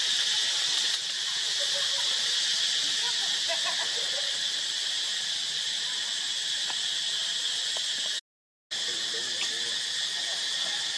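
Steady, high-pitched chorus of insects droning without a break. It cuts out completely for about half a second about eight seconds in.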